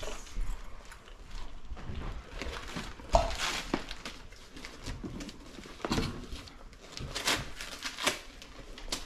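Gift wrapping rustling and crinkling in irregular spurts as a present is pulled at and unwrapped, with the sharpest crackle about three seconds in.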